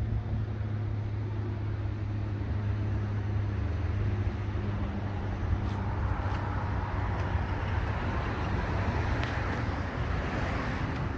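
Road traffic: a steady low rumble, with a passing vehicle's noise swelling in the second half.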